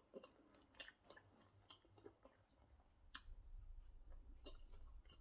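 Faint close-up chewing of pounded yam with egusi soup: soft, scattered wet mouth clicks. A low rumble comes in about three seconds in.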